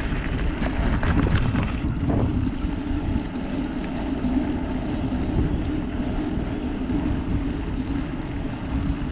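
Steady riding noise from a Surly Krampus mountain bike on a dirt trail: a continuous low rumble from the wide 29+ tyres rolling, with a steady hum.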